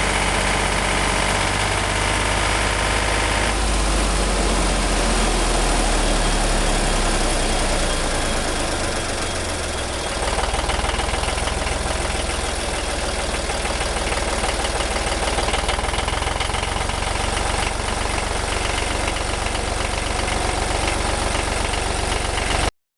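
Three-cylinder engine of a 1963 Renault N70 tractor running steadily, fitted with new cylinders and about 60 hours into its running-in. Its note shifts about three and a half seconds in, and it dips slightly before picking up again near the ten-second mark.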